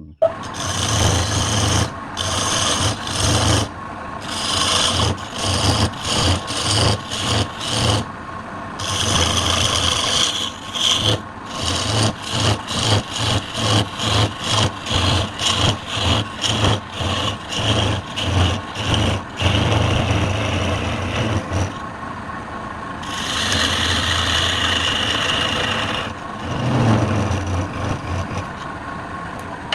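Rhythmic rasping strokes of a tool worked back and forth on wood, about one and a half strokes a second. Near the end they give way to a few seconds of steadier rasping.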